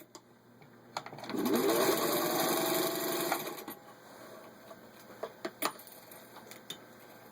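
Singer 15-91 sewing machine's motor speeding up, then running steadily for about two seconds as it stitches through four layers of vinyl upholstery, and stopping. A few sharp clicks follow.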